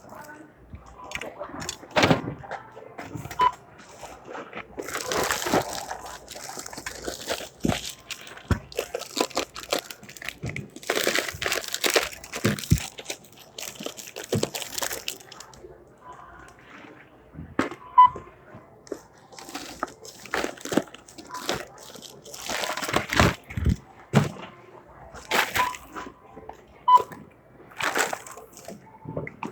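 Checkout counter sounds: items and plastic bags being handled, rustling and knocking, with a few short single beeps from the register.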